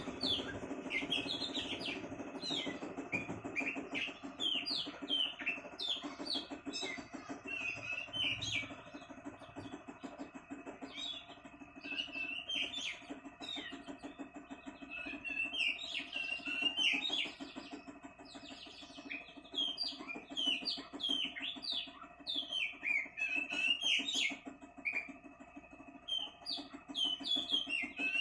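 A bird singing in fast runs of short chirps and whistled notes, many of them dropping in pitch, over a steady low hum.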